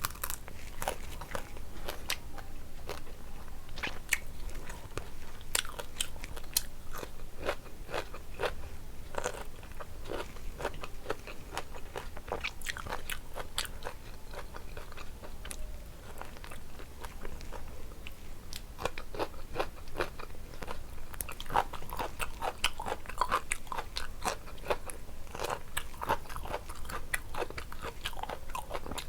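Close-up eating sounds: chewing with frequent crisp crunches and wet mouth clicks, of fried fish, onion pakoda and rice with curry.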